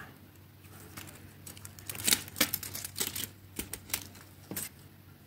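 Clear plastic nail-tip sample sticks clicking and clacking against each other and on a metal ring as they are handled and threaded on: a run of sharp, irregular clicks from about two seconds in.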